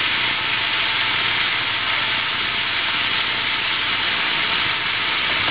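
Carrots, broccoli and celery sizzling steadily in a hot skillet as they stir-fry.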